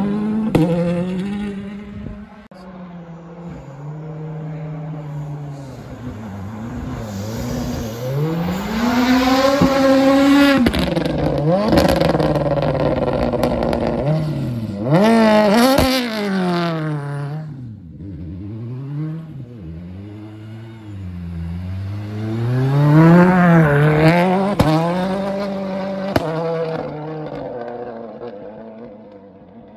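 Ford Fiesta WRC rally car's 1.6-litre turbocharged four-cylinder engine revving hard and dropping back through quick gear changes, several times over. It is loudest about a third of the way in, halfway and again past two thirds, then fades as the car moves away.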